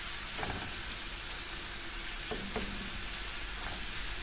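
Pieces of seasoned hedgehog fish (puffer fish) sizzling steadily in melted butter in a frying pan, stirred and turned with a wooden spatula.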